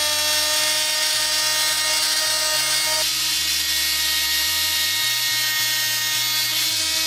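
Oscillating multi-tool running with a steady high-pitched whine as its metal-and-plastic blade cuts the plastic mounting pegs off the back of a car badge.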